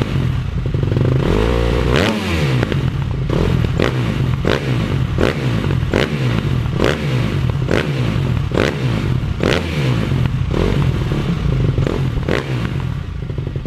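Motorcycle engine revving over and over, its pitch rising and falling again and again, with a sharp crack roughly every second.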